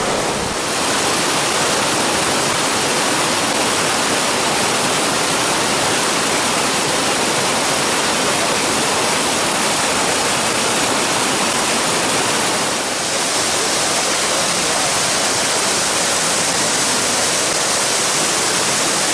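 Fast snowmelt creek rushing over rocks: a loud, steady wash of white water, dipping briefly about half a second in and again near 13 seconds.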